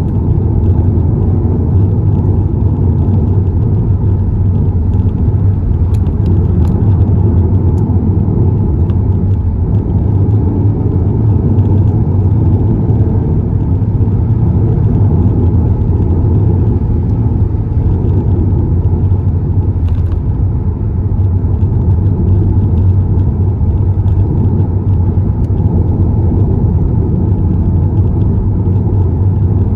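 Car on the move, heard from inside the cabin: a steady low rumble of engine and tyre road noise.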